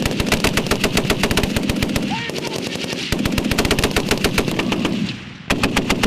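M2 .50-calibre heavy machine guns firing sustained bursts of rapid shots, with a brief break about five seconds in before the firing picks up again.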